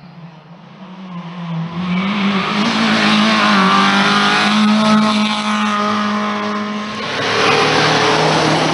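Rally car driven flat out toward and past close by, its engine getting louder as it approaches. The pitch wavers as the driver works the throttle and gears, and it eases off briefly about seven seconds in before pulling hard again.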